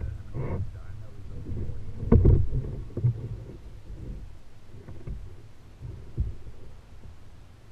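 Irregular knocks and thumps on a plastic kayak over a steady low rumble. The loudest thump comes about two seconds in, and smaller knocks follow every second or so.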